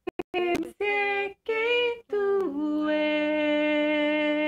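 A woman singing a cappella, the fourth harmony part of a vocal arrangement: a few short sung syllables, then one long held final note.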